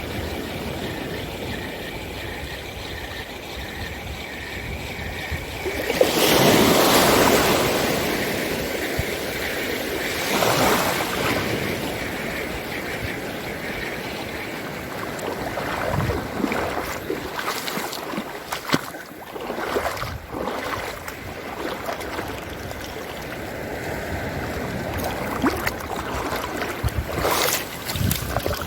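Sea waves washing, with two louder surges about six and ten seconds in, and a few short knocks near the end.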